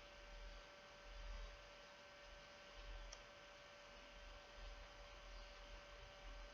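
Near silence: a faint, steady electrical hum, with one faint tick about three seconds in.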